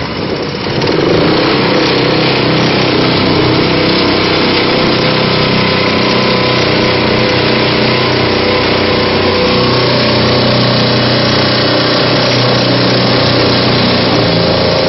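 Long-tail mud motor driving a small boat. It revs up over about the first second after a brief dip, then runs steadily at high throttle.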